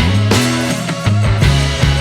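Rock music with drums, bass and guitar.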